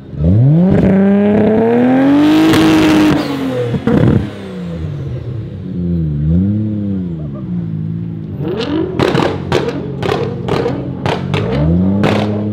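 Big-turbo Nissan Skyline R32 GT-R's RB26 straight-six revved hard, rising for a few seconds before dropping off. It then holds a high idle while the anti-lag fires a rapid string of exhaust bangs, about three a second, with another rev near the end.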